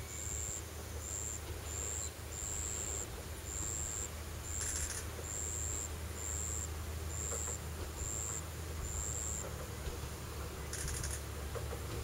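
An insect calling in short, high buzzes repeated evenly about once every three-quarters of a second, stopping near the end, over a low steady hum. Two brief higher rasps come about five and eleven seconds in.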